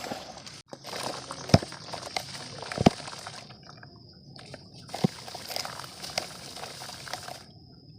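Dry mud crumbling into water: a low wet sloshing with a few sharp plops, the loudest about one and a half and three seconds in, another near five seconds.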